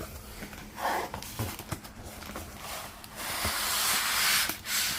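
Cardboard shipping box being opened and its packing handled by hand: scattered knocks and clicks, then a long rustling scrape about three seconds in.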